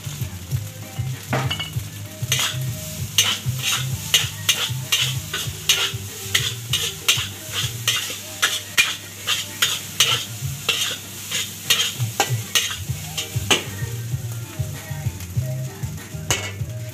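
Metal spatula scraping and clanking against a wok while fried rice is stir-fried and sizzles, about two strokes a second, thinning out near the start and end.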